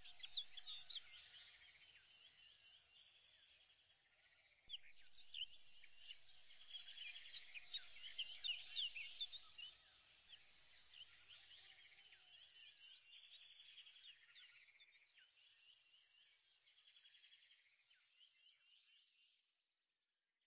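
Faint birds chirping and twittering, many quick calls over a steady high hiss, fading out near the end.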